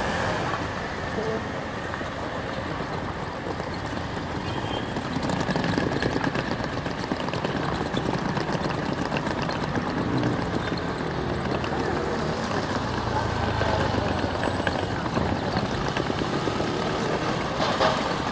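Steady outdoor traffic ambience: cars and vans idling and moving slowly past.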